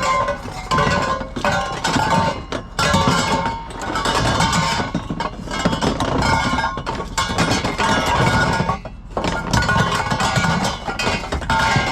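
Scrap metal clanking and clinking as heavy pieces are shifted and stacked, with repeated irregular knocks and short metallic ringing tones.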